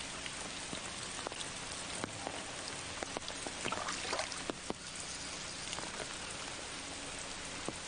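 Steady rain pattering, with many scattered sharp drop ticks over an even hiss.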